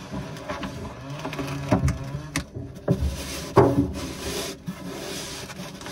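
A hand rubbing and pressing a sheet of self-adhesive EVA foam decking onto a metal boat floor, with a few knocks, the loudest about three and a half seconds in. In the second half comes a steady rustle as the backing paper is peeled back.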